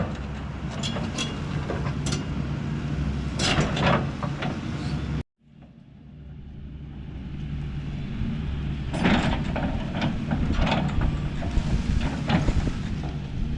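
Excavator's diesel engine running steadily under load while it pushes against a tree, with scattered sharp cracks and clanks. The sound cuts out completely about five seconds in, then fades back in with the engine still running.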